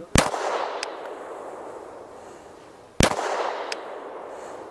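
Two pistol shots from a Glock, about three seconds apart, each trailed by a long echo and followed by a faint click. Each shot comes after a slow, deliberate trigger press that takes up the slack and then breaks the wall of the trigger.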